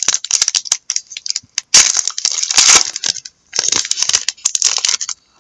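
A trading-card pack's foil wrapper is torn open and crinkled by hand: dense bouts of crackling and rustling.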